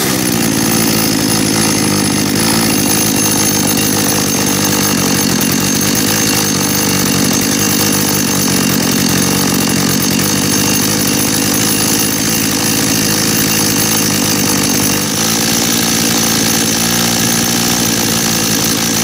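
Dolmar two-stroke chainsaw engine, warmed up, running steadily at idle while the L (low-speed) mixture screw on its freshly cleaned carburettor is turned to find the highest idle speed. The engine note shifts slightly about fifteen seconds in.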